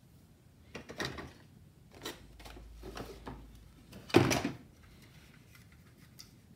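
Loose hard-plastic parts of a 1977 Micronauts Battle Cruiser toy clattering and knocking against each other and the cardboard box as they are picked up and moved about, with the loudest knock just after four seconds in.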